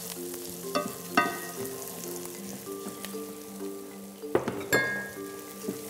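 Fregola toasting in oil and pounded lard in a frying pan, a soft sizzle under a wooden spoon stirring. There are a few sharper scrapes of the spoon on the pan, twice about a second in and twice past the four-second mark.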